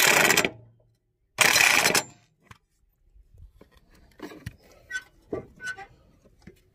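Two loud half-second bursts of rapid mechanical clatter from a wrench working a blade bolt on a Snapper Pro zero-turn mower deck, followed by a few faint clinks of tool and metal.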